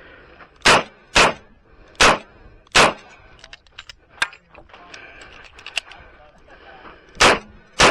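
Smith & Wesson Model 625-JM revolver firing .45 ACP rounds: four shots in quick succession, a pause of about four seconds with a few faint clicks, then two more shots near the end.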